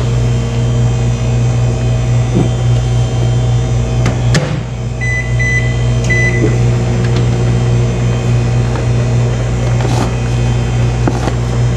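Steady machine hum of running kitchen appliances. About four seconds in something knocks shut, followed by a few short electronic beeps, typical of a microwave oven's keypad being pressed.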